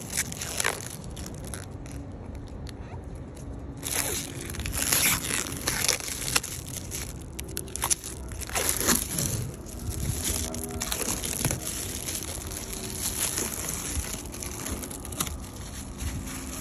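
Clear protective plastic film being peeled off a glossy bucket seat shell, crackling and crinkling in irregular bursts as it tears away and crumples in the hand.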